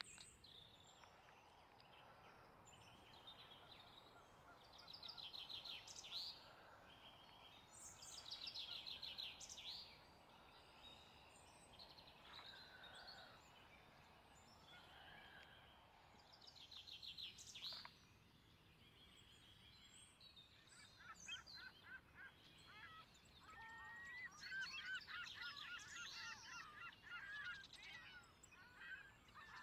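Faint wild birds calling: a few short, rapid trills, then a denser stretch of wavering, chattering calls from about two-thirds of the way in, over a faint outdoor hiss.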